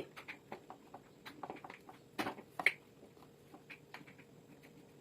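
Parts of a household fan being handled and fitted back together: faint scattered clicks and scrapes, with a couple of louder knocks a little past two seconds in, as a piece is worked into place.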